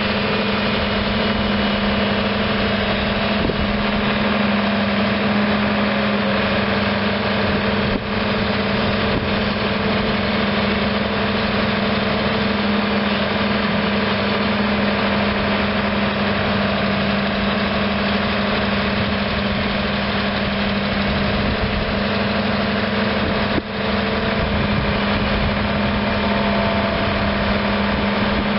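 Volvo EC290B excavator's six-cylinder diesel engine running at a steady speed while the boom, arm and bucket are worked hydraulically.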